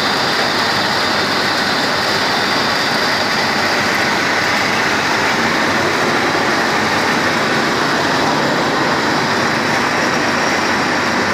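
Diesel engine of a fire-hydrant pump set running steadily, with the pump driving water through the fire main.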